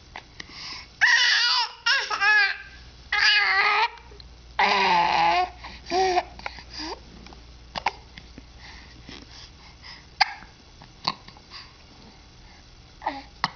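A baby babbling in several loud, high-pitched bursts over the first six seconds, then hiccuping: about four short, sharp hics a second or two apart.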